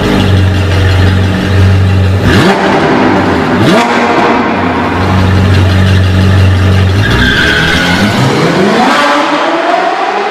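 Sports car engine running with a steady low note, blipped twice a couple of seconds in, then revving up in a long rising sweep near the end.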